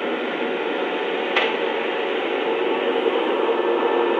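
Lionel Amtrak Acela model locomotives' onboard sound system playing its electric prime-mover sound just after startup: a soft, steady electric-motor whir and hum that builds slightly louder, with a single click about a second and a half in.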